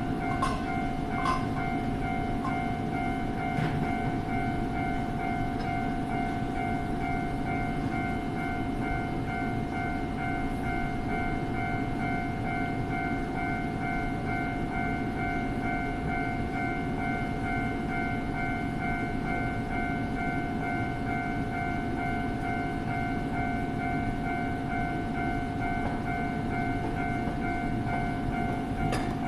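Japanese railway level-crossing warning bell ringing continuously, a repeating electronic two-tone clang, over the steady low rumble of a passing train.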